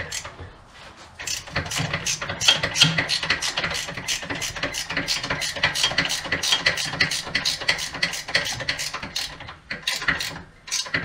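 Hand ratchet wrench clicking rapidly, several clicks a second, as a bolt on a mower bracket is turned, with a short pause near the end.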